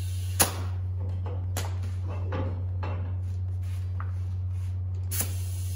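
Metal parts and tools being handled, giving a sharp click about half a second in, scattered lighter knocks and another click near the end, over a steady low hum.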